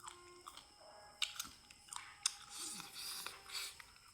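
A person chewing food close to the microphone: wet mouth sounds with several sharp crunching clicks in the middle, then softer chewing.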